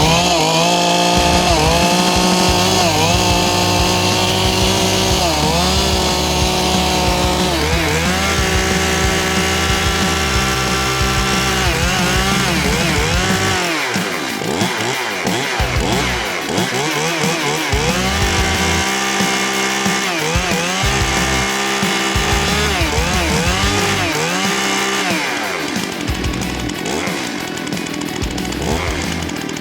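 Stihl Farm Boss 271 two-stroke chainsaw running, just got going after repeated failed starts. It is revved up and down again and again, its pitch sweeping with each rev, and settles lower near the end.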